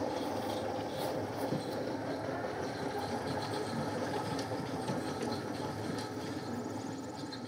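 Allett C27 Evolution battery-powered reel mower running on the lawn, heard from about 30 feet away: a steady, exceptionally quiet whir from its electric drive and spinning cartridge.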